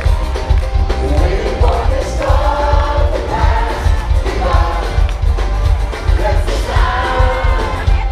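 Live band music played loud through a club's PA, with a heavy bass beat and a singer's voice over it.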